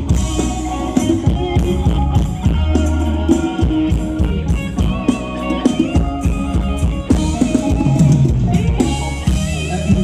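Thai ramwong dance music from a live band, with a drum kit keeping a steady beat of bass drum and snare under sustained melody instruments.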